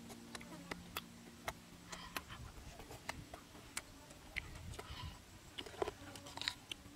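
Small irregular mouth clicks and smacks of people eating with their fingers. A louder cluster of crisp clicks comes near the end as a raw cucumber is bitten into. Faint background music fades out in the first two seconds.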